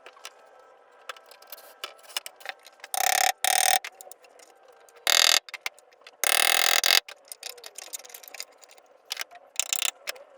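Workshop noises of furniture being worked on: scattered clicks and knocks of handling wood and hardware, broken by four short, loud bursts of hissing noise, the longest lasting nearly a second.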